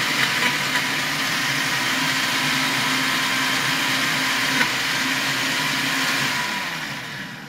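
Countertop blender running steadily at full speed, blending soaked dates with a little water into a paste; it is switched off about six seconds in and winds down.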